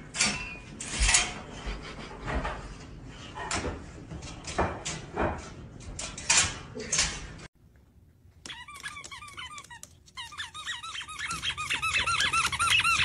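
A dog pawing at the latch of a metal wire crate, rattling the door in a string of sharp knocks and squeaks. After a short gap, a fast, even run of high chirping squeaks starts about ten seconds in.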